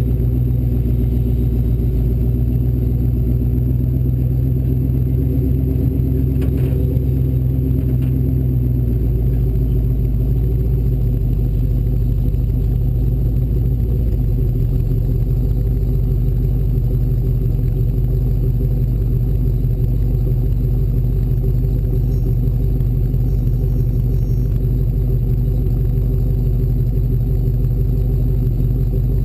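Off-road race Bronco's engine running steadily, with a low rumble. The engine note changes about nine seconds in, and there is a brief rattle around six to seven seconds.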